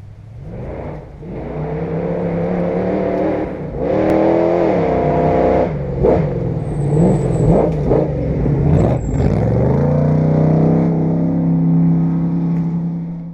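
Off-road desert race vehicle's engine running and revving. It builds over the first two seconds, rises and falls in pitch several times between about four and nine seconds in, then holds a steady note.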